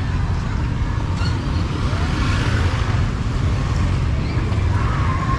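Steady street traffic noise from motorbikes and cars passing on the road, with a strong low rumble.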